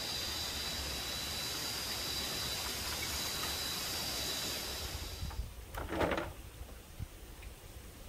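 Night forest ambience: a steady hiss with a high, unbroken insect chorus over it, which cuts off about five seconds in. About a second later comes a brief, louder sound, followed by a few faint ticks.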